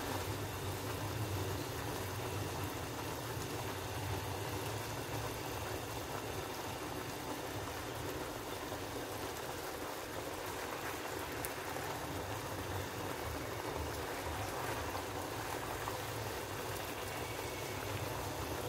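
Chicken pieces frying in a pan, sizzling and bubbling steadily in their juices, with a low hum underneath.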